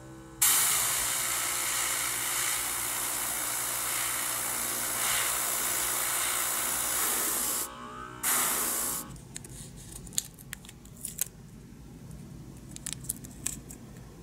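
Gravity-feed airbrush spraying paint: a steady hiss of air, broken once by a short pause about halfway through, then a second short burst before it stops. After that, a few light clicks.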